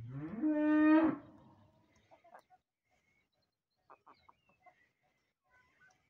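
A cow mooing once: a single call, about a second long, that rises sharply in pitch and then holds before stopping.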